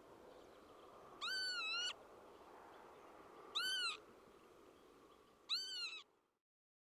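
Northern lapwing calling: three 'pee-wit' calls about two seconds apart, each bending up and back down in pitch, over a faint steady background hiss.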